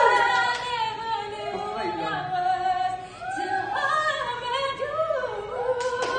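A woman singing a slow melody, holding and sliding between long notes. Hand clapping starts near the end.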